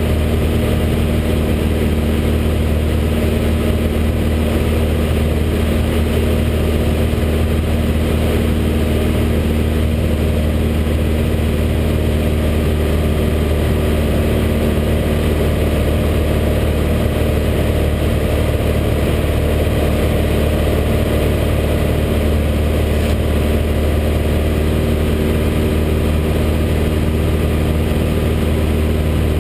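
Light aircraft's piston engine and propeller running steadily in flight, heard inside the cabin as a constant drone with a strong low hum.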